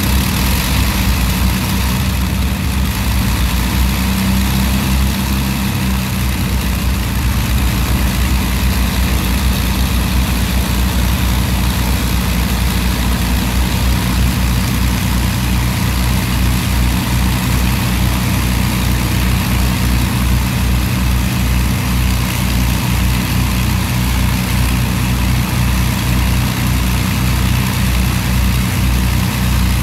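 Avro Lancaster's Rolls-Royce Merlin V12 engines idling steadily with a low, fast throb, shortly after a cold start.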